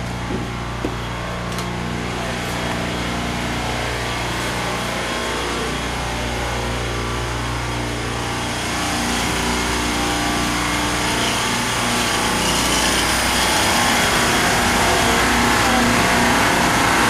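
Steady hum of building machinery with a low droning tone. A hiss grows louder from about nine seconds in, and there are a few light clicks at the start.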